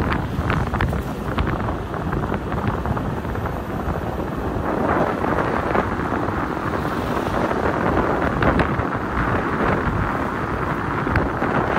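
Wind buffeting the microphone over the steady road noise of a Mitsubishi Triton pickup driving at road speed.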